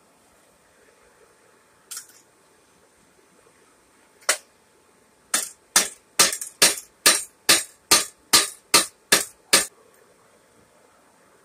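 Sharp knocks: two single ones, then a run of eleven evenly spaced at about two and a half a second, each dying away quickly.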